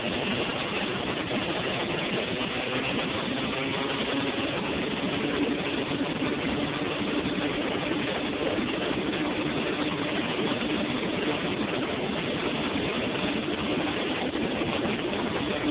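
Single-cylinder two-stroke engine of a 1986 Honda TRX250R quad running at a steady pitch while ridden along at speed, heard from on board under a dense rush of wind and road noise.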